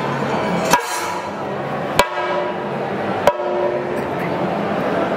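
Thayambaka played on Kerala chenda drums: a dense, continuous drumming texture with three sharp, ringing strikes standing out about a second and a quarter apart.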